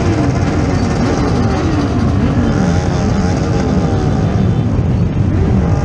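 Motorcycle engines running at idle, a steady low sound, with people talking over them.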